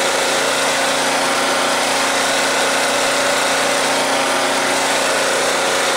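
Proforce 3125 portable generator's engine running at a steady, unchanging speed, its carburetor freshly cleaned.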